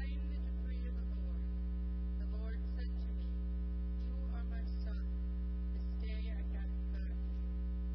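Loud, steady electrical mains hum: a low buzz with many evenly spaced overtones that does not change. Faint speech comes through underneath it.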